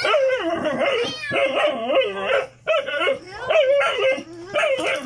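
Dog whining and yipping at a cat: a string of loud, wavering calls that slide up and down in pitch, one after another with short breaks.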